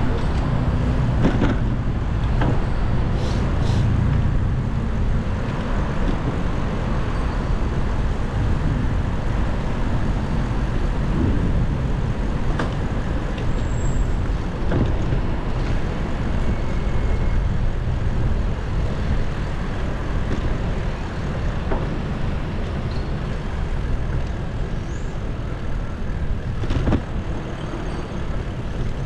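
Steady traffic and road noise heard from a moving bicycle: motor vehicles and a constant low rumble, with a few brief clicks.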